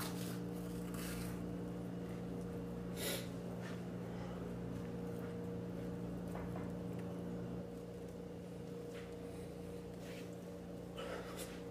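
A man chewing toast and breathing, with a few short, scattered noisy sounds over a steady low electrical hum that drops slightly about two-thirds of the way through.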